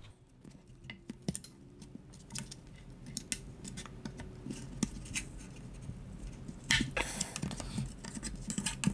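Light clicks and scraping of a plastic speaker trim ring being pried at around the bass driver with a kitchen utensil, with a louder cluster of clicks about seven seconds in.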